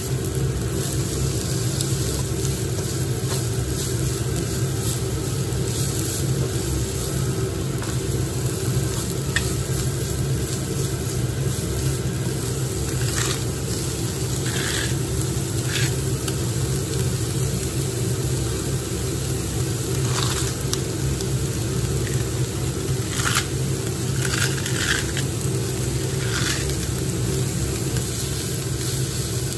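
Vegetables sizzling in a nonstick frying pan as they are stir-fried with a slotted spatula, over a steady low hum. In the second half, short scrapes and rustles come as cabbage is dropped in and stirred.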